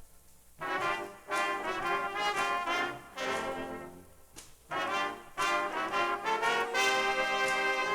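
School jazz stage band's brass section, trumpets and trombones, playing held chords together in short phrases with brief gaps between them, from a 1969 LP recording.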